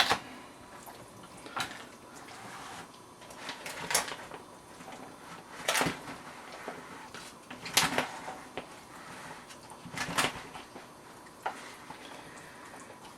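A spoon mixing dressing into a bean salad in a bowl: soft stirring with a short knock against the bowl about every two seconds.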